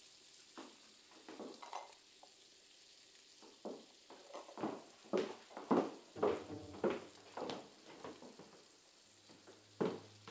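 Kitchen cooking sounds: a faint steady sizzle under a run of irregular clinks and scrapes of utensils and dishes, busiest in the middle.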